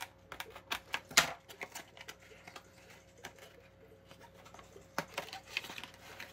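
Cardboard-and-plastic toy box being handled and opened: scattered clicks and taps of the packaging, with a sharp snap about a second in and another about five seconds in.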